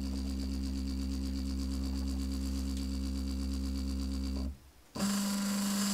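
Shapeoko 3XL CNC router's stepper motors whining steadily while the machine moves the cutting head in a probing run against a calibration block to set its X, Y and Z zero. The motion stops for a moment about four and a half seconds in, then a new move starts with a different pitch and more hiss.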